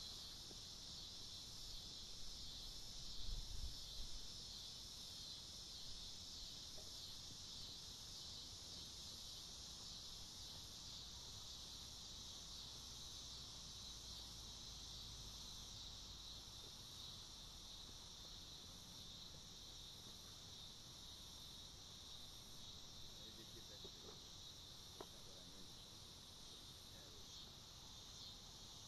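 Faint, steady, high-pitched insect chorus that goes on without a break, with a brief low rumble about three seconds in.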